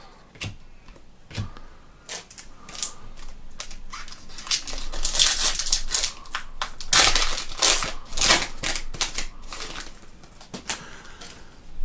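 Trading-card pack wrapper being torn open and crinkled by hand, with the cards handled: a dense run of short crackles and clicks, busiest in the middle.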